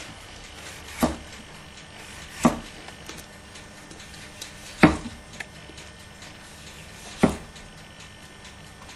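Kitchen knife slicing a tomato, the blade knocking down onto the cutting board with each cut: four sharp knocks spaced one to two and a half seconds apart.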